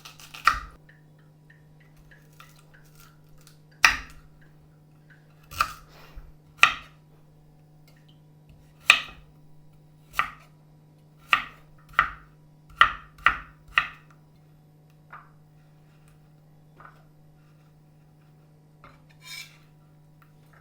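Knife chopping on a cutting board: about a dozen sharp chops at an uneven pace, coming quicker around the middle, then a few light taps near the end, over a steady low hum.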